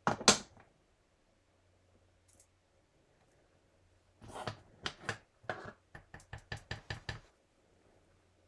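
Rubber stamp and ink pad knocking on a tabletop: a loud double knock at the start, then after a pause of a few seconds a run of quick taps, about four a second, lasting about three seconds.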